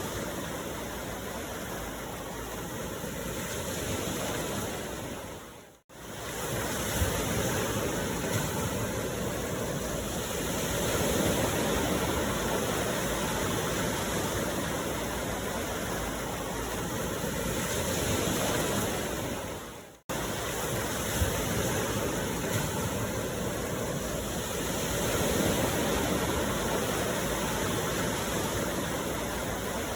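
Recorded ocean waves washing on a shore: a steady rush of surf that slowly swells and eases. The sound dips out twice, about 6 seconds in and again about 20 seconds in, each time cutting straight back in, as a looped track does at its seam.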